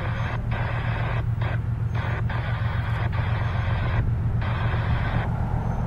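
Air horn of an approaching CSX freight locomotive, heard from a distance, sounding a series of blasts of uneven length with one long blast in the middle. Under it runs a steady low rumble.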